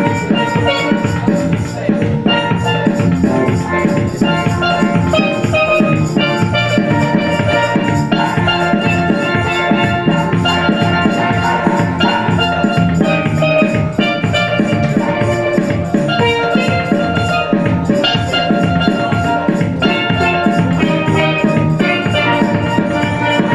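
Music with drums and a steady beat, loud and unbroken.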